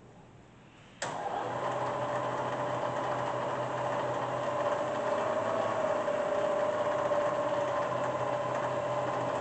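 Bridgeport Series II Special's 2 hp vertical milling head switched on about a second in, its spindle running steadily in low range (back gear) with a steady whine.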